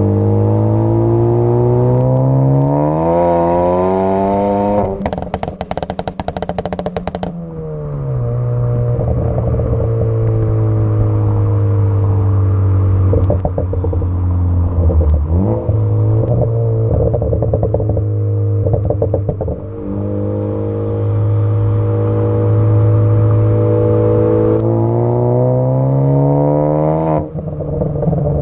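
Tuned, turbocharged Ford Focus ST engine revved up from idle twice, rising in pitch each time. As the revs fall it pops and crackles from the exhaust, a dense run of crackles after the first rev and a shorter one after the second, with scattered pops during the idle between. These are the overrun pops and crackles of a tune.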